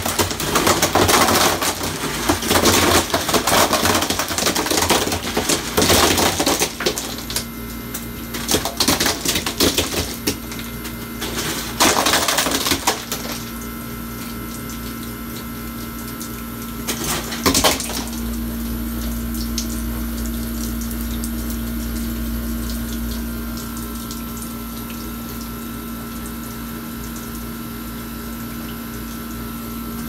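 Scotsman ice machine in harvest: an irregular clatter of ice and splashing into the bin for roughly the first 13 seconds, a single knock about 17 seconds in, then water running steadily into the bin over a constant machine hum with a steady tone. The water running into the bin is the unit's leak, which the technician puts down to a bad water shut-off valve.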